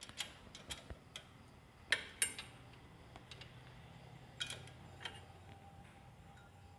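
Scattered metal clicks and clinks of hand tools on the engine's valve gear: the tappet adjuster on the Bajaj Discover 125 is being loosened because the exhaust valve had no clearance. The loudest clinks come about two seconds in and again around four and a half seconds.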